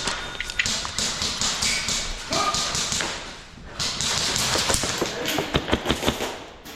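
MK18 airsoft rifle with a Wolverine Inferno engine running on CO2, firing a quick string of sharp shots about five seconds in, over rustling movement.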